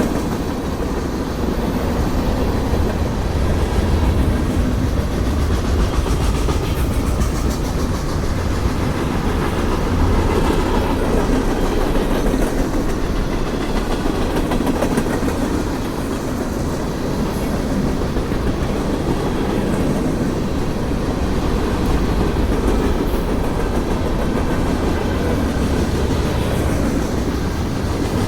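Cars of a mixed manifest freight train rolling past at track side: a steady low rumble of steel wheels on the rails.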